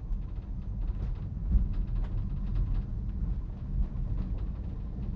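Great Orme Tramway's cable-hauled tramcar running on its rails: a steady low rumble with scattered light clicks.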